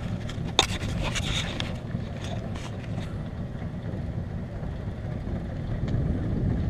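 Low, uneven rumble of wind buffeting the microphone, with one sharp click about half a second in.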